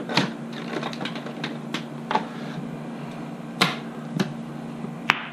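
Scattered light clicks and taps of playing cards being handed in and set down on a wooden table, about seven in all at uneven intervals, over a low steady hum.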